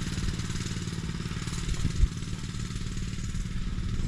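Mini bike's 212cc single-cylinder engine running steadily, with a single short knock about two seconds in.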